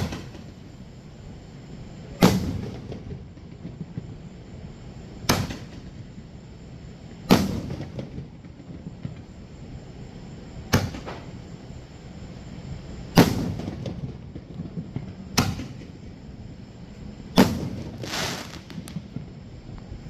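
Aerial fireworks shells bursting one at a time, about nine sharp booms spaced two to three seconds apart, each trailing off in a brief echo.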